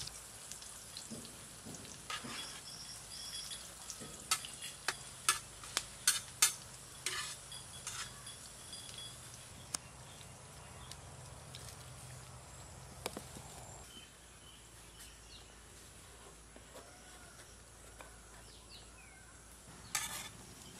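Cooking work with pans and utensils: sharp knocks and clinks, about a dozen of them between about four and eight seconds in, with a louder one near the end, over a faint steady sizzle.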